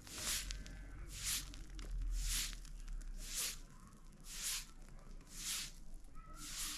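Footsteps crunching at an even pace, about one step a second.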